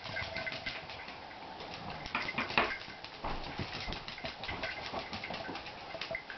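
Miniature dachshund's claws pattering and clicking on a hard tiled floor as it trots about, with a few louder knocks about two seconds in.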